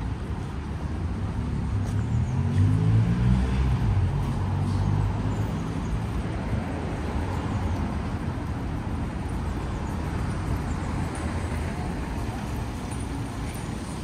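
City street traffic: a motor vehicle's engine rising in pitch as it accelerates past, loudest about two to three seconds in, then a steady traffic hum.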